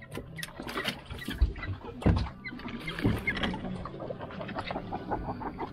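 Irregular knocks, thumps and clatter of freshly caught cod being handled on a fishing boat's deck and put into plastic fish crates, over a low steady hum.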